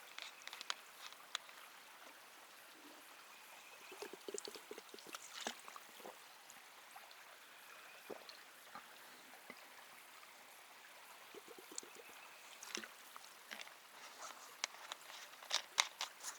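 Drinking water from a bottle, with scattered clicks and knocks of the bottle being handled and short gurgles and gulps, bunched about four seconds in and again near the end.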